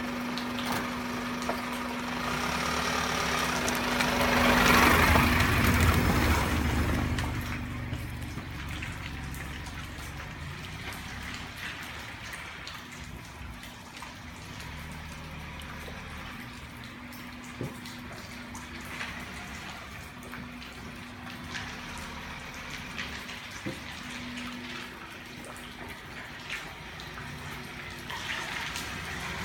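A vehicle's tyres hiss through water on a wet road as it passes close to the microphone about four to seven seconds in, then steady rain with scattered drips and taps and a faint low hum. Near the end another vehicle starts to approach.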